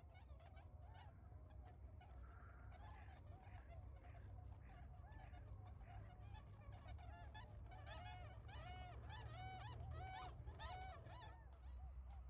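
A flock of Bewick's swans (tundra swans) calling: a continuous chorus of short calls, growing louder and fuller from about seven seconds in as several birds call together.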